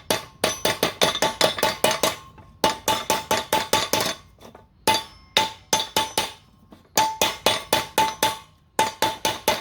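Hammer striking a steel exhaust pipe in quick bursts of sharp, ringing taps with short pauses between them. The taps are closing up the gaps where the slit pipe is fitted over the header collector.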